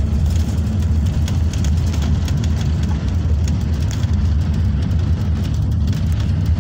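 Steady low rumble of a moving road vehicle's engine and tyres, heard from inside the cabin, with scattered light rattles.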